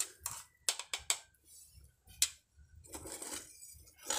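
A handful of sharp, irregular clicks and small cracks in the first two seconds or so, then a short rustle about three seconds in.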